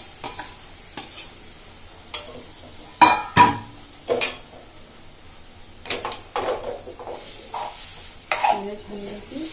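Metal spoon stirring a thick mixture of cooked colocasia leaves, peanuts and dal in a metal pot, scraping and clinking against the pot in irregular strokes, the loudest a couple of knocks about three seconds in.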